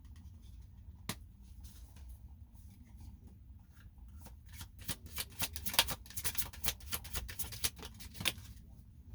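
Tarot cards being shuffled by hand: a single sharp card snap about a second in, then a run of rapid card flicks from about five seconds until near the end.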